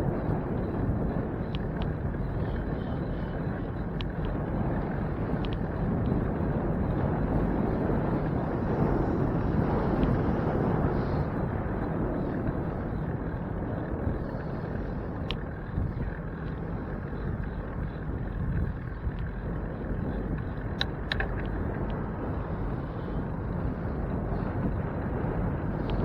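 Steady rushing wind and road noise picked up by a camera on a moving bicycle, with a few faint ticks.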